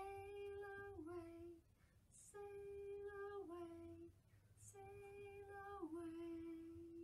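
A woman singing an unaccompanied children's song in three slow phrases. Each phrase is a long held note that drops a step near its end.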